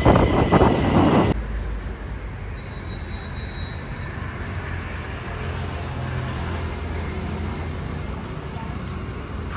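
Loud road traffic noise for about the first second, then a sudden cut to a steady low rumble of distant city traffic.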